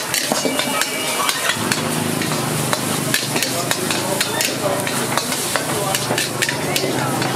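Metal spatula scraping and clacking rapidly against a wok as rice is stir-fried, with oil sizzling underneath. A steady low hum joins in about a second and a half in.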